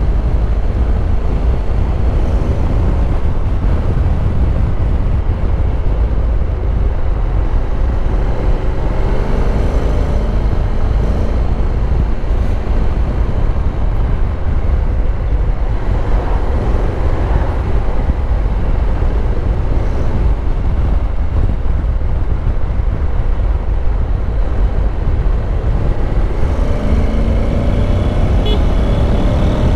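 Honda NC750X DCT's parallel-twin engine running at road speed, half buried under a steady low rumble of wind on the microphone. The engine note falls over the first few seconds and climbs again near the end.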